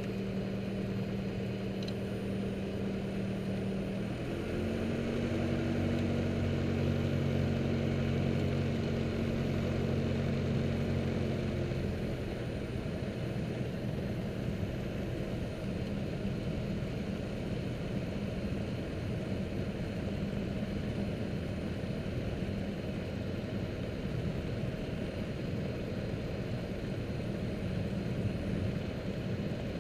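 Piper Archer II's four-cylinder Lycoming engine and propeller, heard inside the cockpit while taxiing. The engine runs steadily, speeds up and gets louder about four seconds in, then is throttled back about twelve seconds in to a lower, rougher running.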